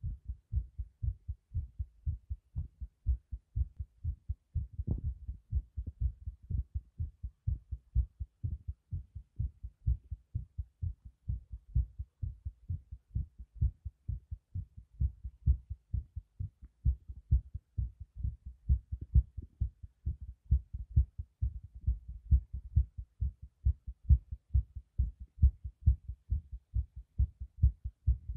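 A human heartbeat: a regular, unbroken rhythm of low, dull thumps.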